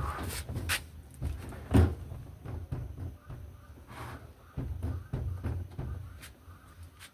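Scattered clicks and knocks of parts and tools being handled, with one louder knock about two seconds in, over a low steady hum.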